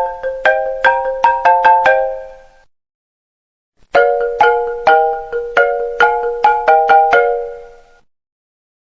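iPhone ringtone playing: a marimba-like phrase of quick struck notes that rings out and stops about two and a half seconds in. After a gap of about a second, the phrase repeats and rings out again near the end.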